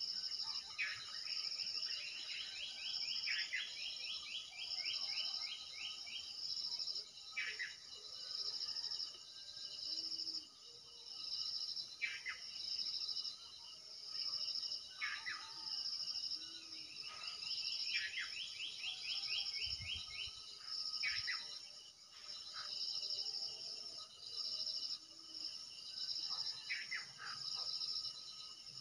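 Garden ambience: insects chirping in a steady, pulsing high-pitched rhythm throughout, with birds calling over it. The bird sound comes as rapid trills about a second in and again around 17 seconds, plus short sweeping calls several times.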